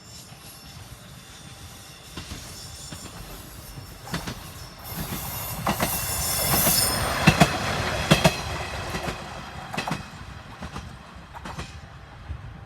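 Tenryū Hamanako Railroad diesel railcar passing close by. It builds up, wheels click sharply over the rail joints several times, loudest about halfway through, and the sound then fades away.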